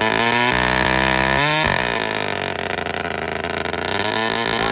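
Husqvarna two-stroke chainsaw running at full throttle while cutting through a log. The engine pitch holds high, then drops and wavers under the load of the cut from about two seconds in, steadying again near the end.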